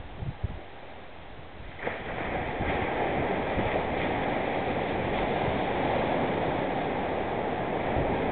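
Ocean surf: a wave breaks about two seconds in, and its foaming wash then runs on steadily and loud. Wind gusts on the microphone make low thumps before the break.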